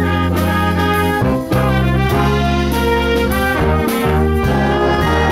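High school wind band playing together: trumpets, trombones, saxophones and a drum kit, with a short break in the phrase about a second and a half in.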